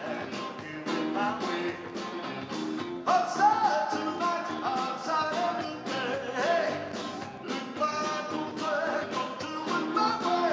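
Live rock band playing, with electric guitars and drums. A male lead vocal sings over it from about three seconds in.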